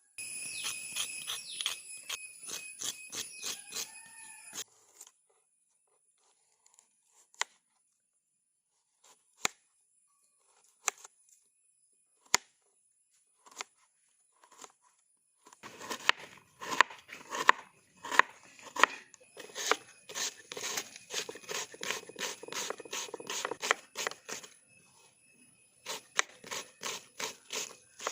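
Food-preparation sounds: runs of quick, sharp utensil strikes and scrapes, several a second, for the first few seconds and again through most of the second half, with scattered single knocks in between.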